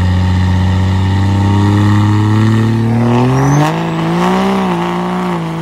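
Turbo-diesel engine of a 2022 Ram 2500 (6.7 L Cummins straight-six) pulling hard under acceleration at only quarter throttle. Its pitch rises steadily for about three and a half seconds, then drops abruptly at an upshift and the engine pulls on.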